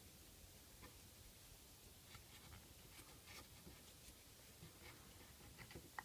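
Near silence with faint rubbing and small scattered clicks as fingers work a new seal into the groove of a BMW dual Vanos piston, with one sharper click near the end.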